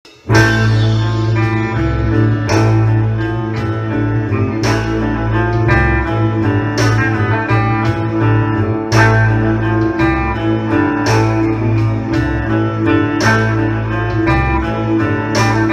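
Instrumental rock intro: electric guitar over a steady bass line and a beat, with a heavy accent about every two seconds.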